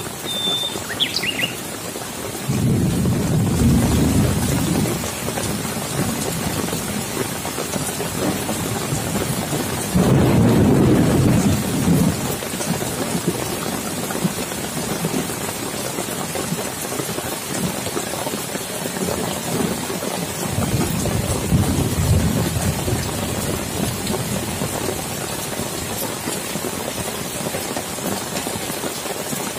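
Steady rain falling on leaves and waterlogged ground, with three low rolls of thunder. The loudest roll starts suddenly about ten seconds in.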